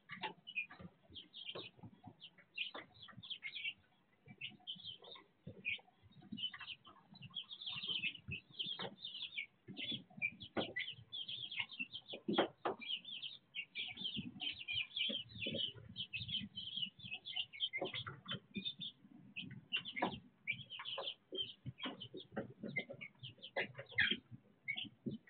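A group of young chicks peeping continuously, many short high calls overlapping, with scattered knocks and rustling from birds moving and pecking in wood-shaving bedding.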